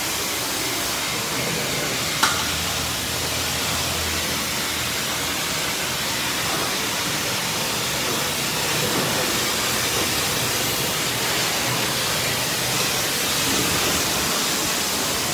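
High-pressure car wash spray wand hissing steadily as its jet spatters on a car's body, with a single click about two seconds in.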